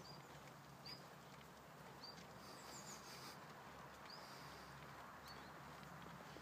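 Near silence: faint outdoor ambience with short, high chirps recurring about once a second.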